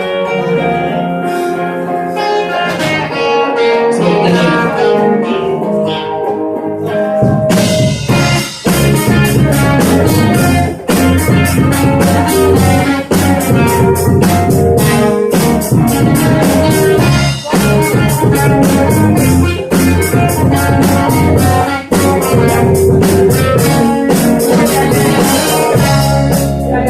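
Live rock band playing an instrumental passage: a guitar plays on its own at first, then the drum kit and bass come in about seven seconds in and the full band plays a steady driving beat.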